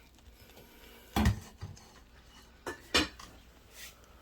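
Dishes and utensils clinking and knocking: a few separate sharp knocks, the loudest about a second in and another near three seconds.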